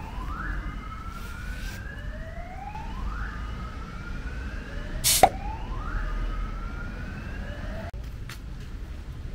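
An electronic alarm sounding a repeating rising whoop, about one every second and a half, that cuts off abruptly near the end. A single sharp crack about five seconds in is louder than the alarm, over a steady low rumble.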